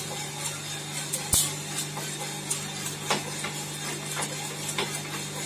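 Small drum coffee roaster running with a steady hum, while the beans crack in the drum in scattered sharp pops, with one louder knock a little over a second in.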